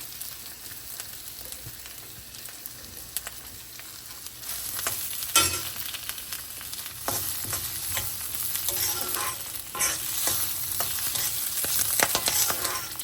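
Chopped onions sizzling in hot oil in a pan with mustard seeds, while a spoon scrapes and stirs them. The frying and stirring get louder and busier about halfway through.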